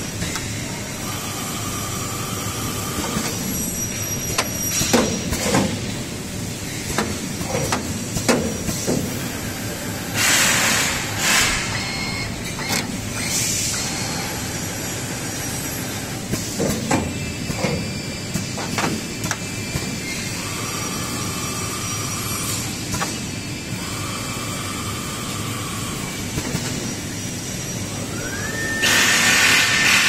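Four-head corner crimping machine for aluminium window frames at work: motor whines that switch on and off, scattered knocks and clanks of the heads, and several loud hisses of air. Near the end a whine rises and holds as the heads travel along their rails, under another long hiss.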